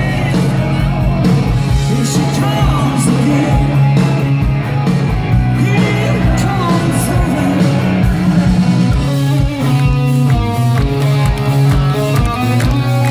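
Live rock band playing at full volume: electric guitars, bass and drums, with a male lead vocal.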